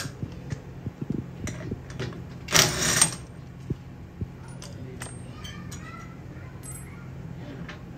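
Metal tools and bike parts clicking and clinking during e-bike brake repair work, with one louder rattle about two and a half seconds in.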